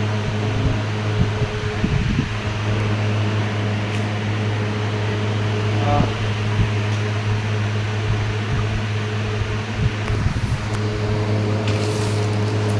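A steady low electric-motor hum with a few even overtones, with a few light knocks and taps over it.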